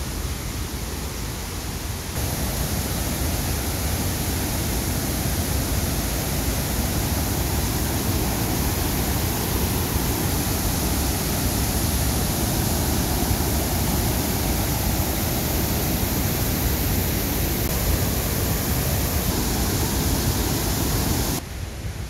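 Steady rushing wind noise on the microphone, heaviest in the low end, getting louder about two seconds in and dropping off just before the end.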